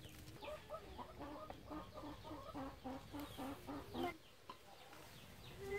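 A hen clucking in a quick, even run of short clucks, about four a second, that stops about four seconds in.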